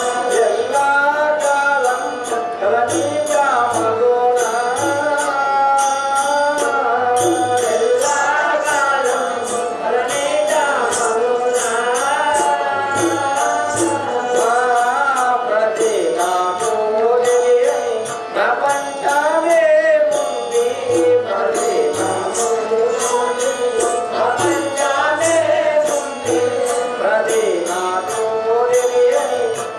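Devotional stage-drama music: a wavering, ornamented melody, likely a singer, over hand drums and a steady beat of sharp metallic ticks a few times a second.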